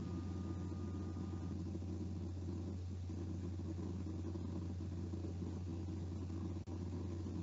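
Steady low rumble picked up by an open microphone on an online video call, with no speech; a faint thin tone sounds for the first second and a half, and a brief click breaks it near the end.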